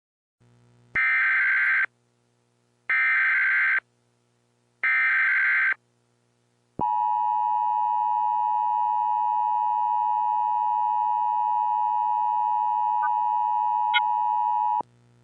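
Emergency Alert System tones: three short bursts of SAME digital header data, each just under a second and about a second apart, followed by the EAS two-tone attention signal held steady for about eight seconds before cutting off suddenly.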